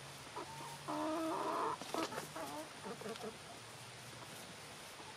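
Backyard chickens clucking while they feed. There is one louder drawn-out call about a second in, a couple of sharp ticks around two seconds, and the calls thin out in the second half.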